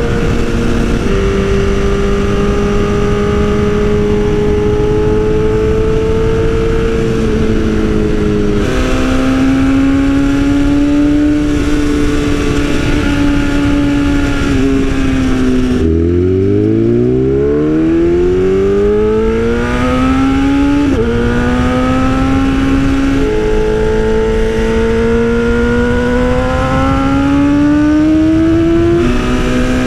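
2020 BMW S1000RR M Sport inline-four sportbike engine, through an Austin Racing exhaust, running under way. Its pitch holds and jumps with gear changes. About halfway through the revs drop low and then climb in one long rise as the bike accelerates.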